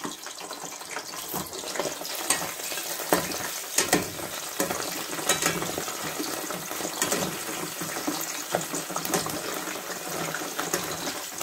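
Cauliflower florets deep-frying in hot oil in a stainless steel kadai: a steady sizzle dotted with frequent crackles and pops. A spoon stirs the florets near the end.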